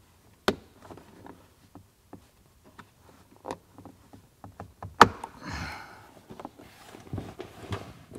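Plastic clips of a BMW E46's rear-deck speaker grille clicking and knocking as the grille is pried out by hand, with one sharp snap about five seconds in followed by a short scraping rustle.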